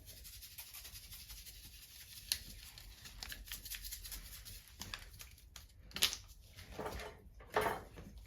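Small foil seasoning packets being torn open and handled: faint rustling and crinkling, with a few louder crinkles in the last couple of seconds.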